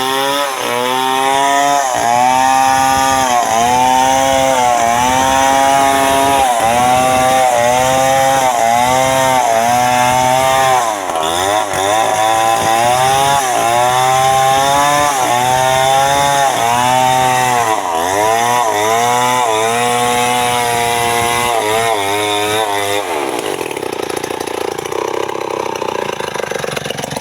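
Two-stroke chainsaw cutting wood, its engine note dipping as the chain bogs in the cut and climbing back again about once a second. Near the end the engine note fades out, leaving a steady rushing noise.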